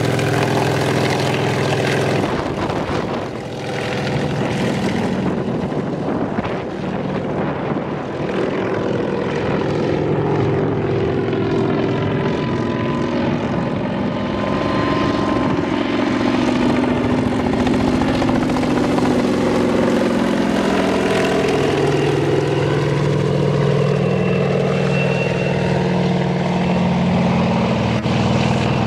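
Kamov Ka-26 helicopter in flight: its two nine-cylinder Vedeneyev M14V-26 radial engines and coaxial rotors running in a steady drone, with a thin siren-like whine from the engines' cooling fans. The pitch sinks and then rises again as the helicopter flies away and comes back low.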